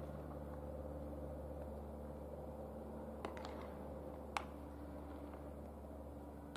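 A steady low hum with a few faint knocks, the sharpest one about four and a half seconds in.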